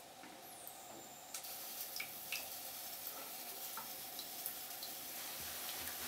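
DC 24 V ultrasonic mist maker running submerged in a sink, the water over its transducer disc fizzing and spattering with small drip-like ticks. The hiss grows fuller about a second and a half in.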